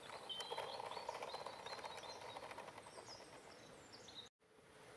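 A model train running on garden track: a faint motor hum with rapid clicking from the wheels on the rails, strongest in the first couple of seconds as it pulls away. Small birds chirp high and briefly over it. The sound cuts out for a moment near the end.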